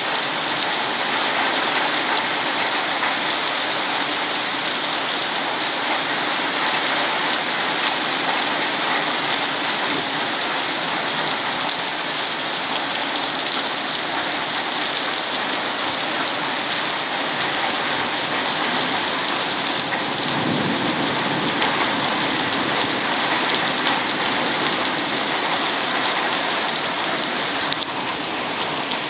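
Heavy rain pouring steadily in a thunderstorm, with a low rumble of thunder about twenty seconds in.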